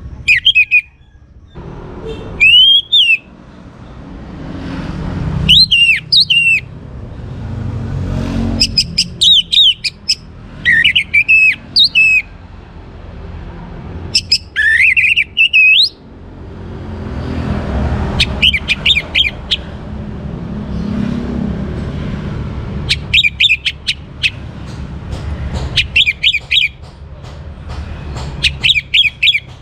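Orange-headed thrush singing: about ten short, loud phrases of high whistles and slurred, gliding notes, each a second or so long and separated by pauses of a few seconds. A low rumble rises and falls underneath.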